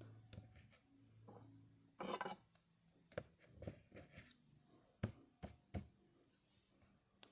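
A faint low hum, then a series of short, sharp clicks and taps at irregular intervals, typical of small plastic toy figures and accessories being handled and set down on a surface.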